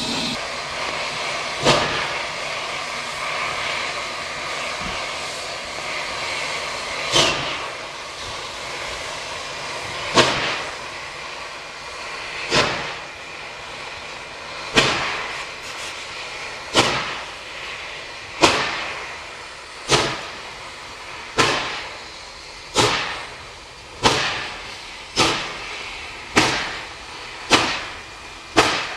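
Exhaust beats of NSW C38 class steam locomotive 3801, a two-cylinder Pacific, starting away slowly from a stand on a slippery grade after stalling. A steady steam hiss fills the first few seconds. The sharp chuffs then come closer and closer together, from several seconds apart to about one a second, as the engine gets its train moving.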